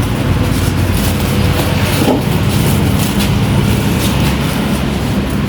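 A steady low mechanical hum under a loud, even background din.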